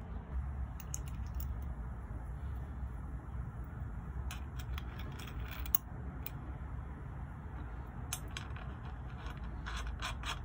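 Light metallic clicks and clinks in scattered bunches as small metal parts are fitted onto a go-kart's axle at the wheel hub, over a steady low rumble.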